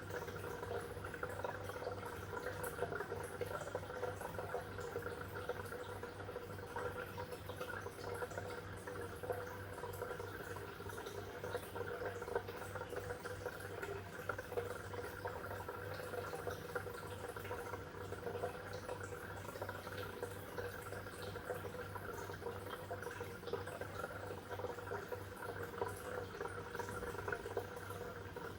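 Water bubbling and trickling steadily, with a constant low hum underneath.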